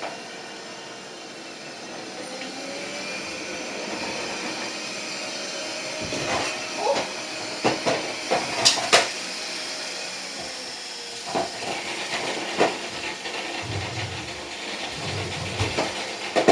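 Bathroom exhaust fan running with a steady hiss that builds up over the first few seconds. Over it come sharp knocks and clatters of bottles and objects being moved about, most of them in the middle.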